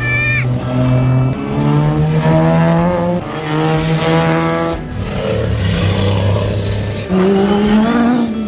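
Racing and classic car engines accelerating past one after another on a hillclimb course. The engine note holds steady, then jumps to a new pitch every second or two, and rises near the end.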